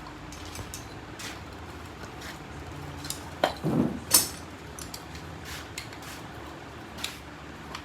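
Light metallic clinks and taps of hand tools on metal parts, with a louder cluster of knocks and clatter between about three and a half and four seconds in, over a faint low steady hum.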